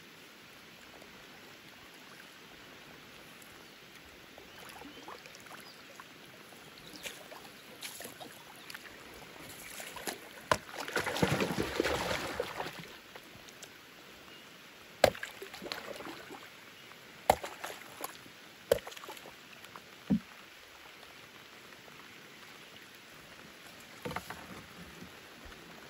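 Light rain pattering on the lake surface, with a large fish thrashing and splashing loudly for a couple of seconds as it is hauled from the net over the side of a wooden canoe. Several sharp knocks follow a few seconds apart, then the rain alone.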